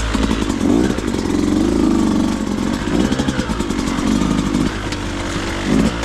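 Beta 200RR two-stroke dirt bike engine revving up and down in short bursts of throttle while riding a trail.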